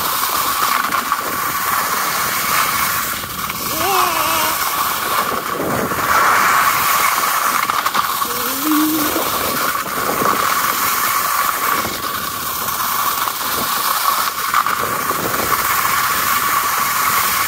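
Steady rushing and scraping of edges sliding over firm spring snow during a fast downhill run, with wind rushing over the microphone.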